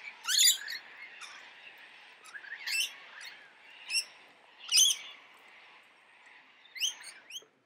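Parrots feeding in a palm tree, giving short shrill screeches roughly a second apart, over a faint steady background.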